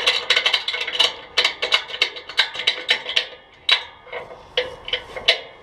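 Ratchet tie-down strap being cranked tight, its ratchet mechanism giving sharp metallic clicks with a short ring, about two or three a second, with a brief pause about four seconds in.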